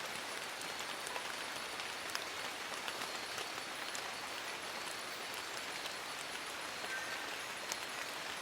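Steady rain falling on forest leaves: an even hiss with many small, irregular drop ticks.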